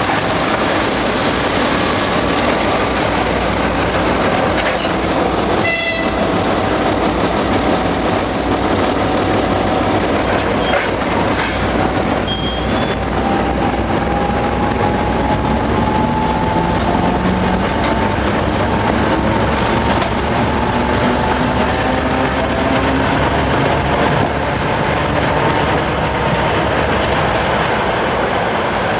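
Soviet multi-section diesel locomotives rumbling past at close range, engines running and wheels clacking over the rail joints, with a short sharp tone about six seconds in.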